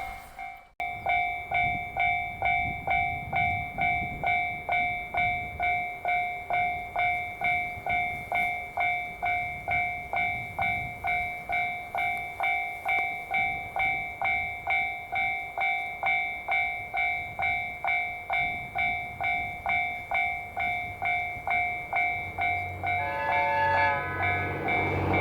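Japanese level-crossing warning bell ringing, an electronic clang repeating about twice a second, which signals that a train is approaching. Near the end a train horn sounds briefly, followed by the low rumble of the approaching train.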